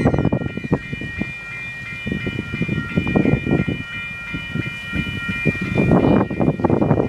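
Wind buffeting the microphone in gusts, with a distant TasRail locomotive's multi-note horn held as one steady chord and fading away about four to five seconds in.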